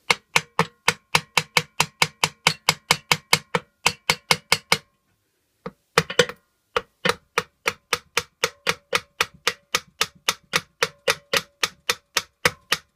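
A hard hammer tapping repeatedly on the aluminium crankcase cover of a Honda GXV160 engine to knock the stuck cover free, about four sharp blows a second, each with a brief metallic ring. There is a short pause about five seconds in before the tapping resumes.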